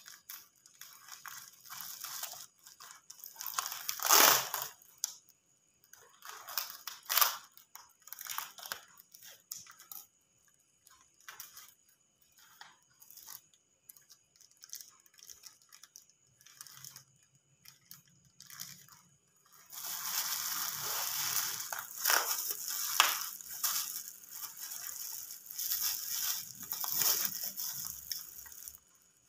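Plastic bag wrapping crinkling and rustling as a parcel is unwrapped by hand, with scattered sharp tearing sounds. There is a louder rip about four seconds in and another near seven seconds, and a long stretch of busy crinkling begins about twenty seconds in.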